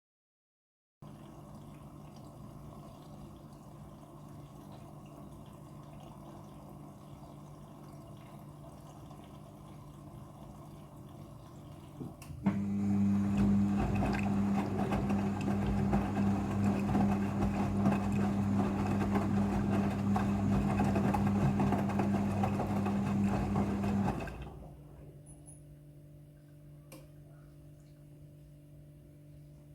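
Midea front-loading washing machine moving water, a rushing of water with a loud, steady electric buzz. It starts suddenly about twelve seconds in and cuts off about twelve seconds later. Before and after it, the machine gives only a faint steady hum.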